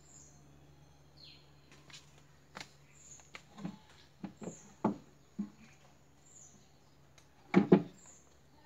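Small scattered taps and light splashes of water in a plastic bucket as a water snake shifts in it, with a sharper double knock near the end. A faint high chirp repeats about once a second.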